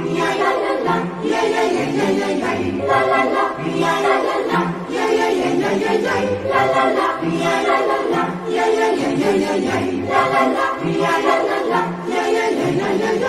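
A choir singing as background music: many voices in held chords that change every second or so.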